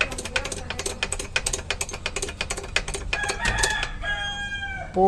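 Rapid light metal clinking and rattling for the first three seconds or so, then a rooster crows in the background: one call of about a second and a half, falling slightly in pitch near the end.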